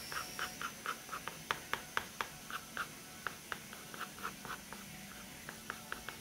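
Wooden pencil scratching on paper in short, quick strokes, about four a second, drawing small shapes.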